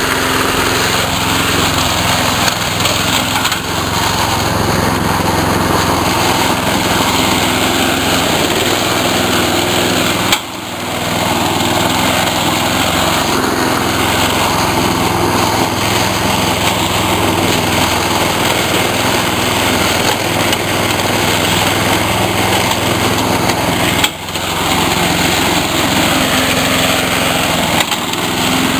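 Chainsaw engine running steadily while cutting up stumps. The sound drops briefly twice, about a third of the way in and again near the end.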